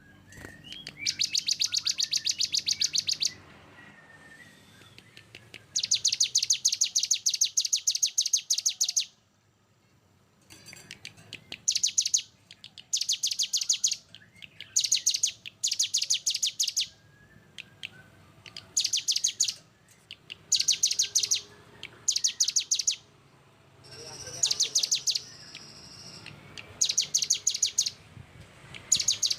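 Small songbird singing dense, rapid 'tembakan' trills: bursts of very fast repeated high notes, the first two lasting about two to three seconds, then many shorter bursts of about a second each, every second and a half to two seconds with short silences between.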